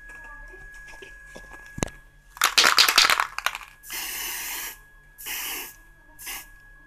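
Aerosol spray paint can: a loud rattle about two and a half seconds in, then three short bursts of spray hissing, the last the briefest.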